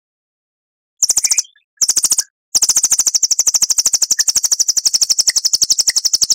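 A songbird's rapid-fire trill of many quick, evenly repeated high notes, the 'nembak' (shooting) type of song used as a masteran: two short bursts, then one long run of about four seconds.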